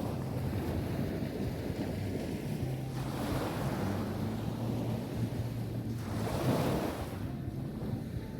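Sea waves breaking and washing up a beach, a steady surf that swells twice, about three seconds in and again a little past halfway, over a continuous low rumble.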